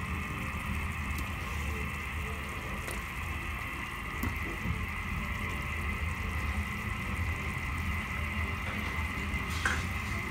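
Pork and onion broth boiling in a wok, a steady bubbling hiss over a low rumble.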